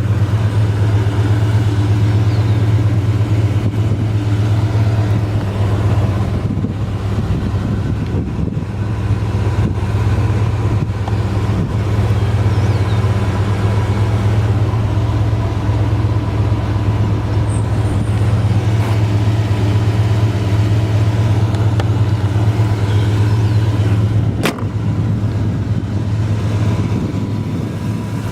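Car's GM 350 crate small-block V8 idling steadily through headers and dual exhaust, a constant low hum. A single sharp click sounds near the end.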